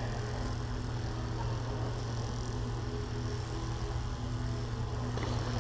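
Steady low hum of a large indoor sports hall's background noise, with no play going on.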